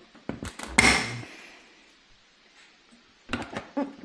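Plastic clips of a Yamaha Tricity scooter's front fairing snapping loose as the panel is pried off with a plastic trim tool. A few light clicks come first, then a sharp snap about a second in, and a cluster of plastic knocks and clicks near the end.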